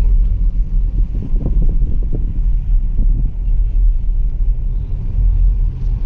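Steady low rumble of a car on the move, heard from inside its cabin: road and engine noise.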